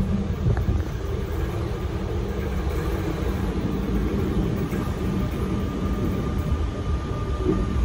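Electric-hauled InterCity train approaching along the platform: a steady low rumble, with a faint thin whine joining about five seconds in.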